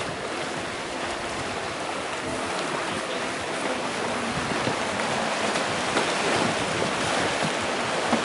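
Steady rush of a fast-flowing river, with light splashing from kayak paddles.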